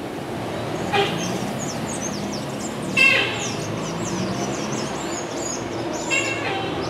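Street ambience: a steady vehicle rumble with birds chirping high above it, and three short sharp sounds about one, three and six seconds in, the middle one the loudest.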